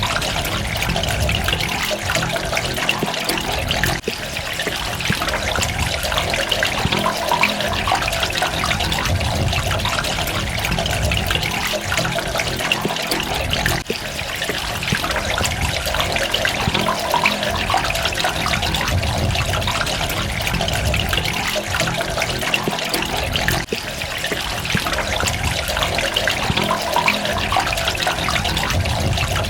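Continuous running water trickling and dripping, an even rush with brief dips about every ten seconds.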